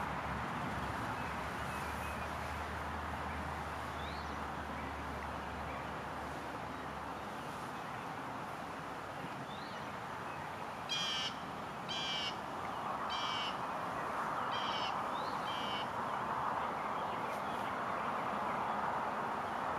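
A bird calls five times in quick succession, about once a second, over steady background noise; a faint low hum fades out in the first few seconds.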